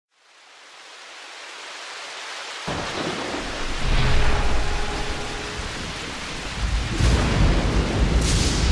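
Storm sound effect fading in: a rain-like hiss, then deep rolling thunder rumbles that start suddenly almost three seconds in and swell again near the end.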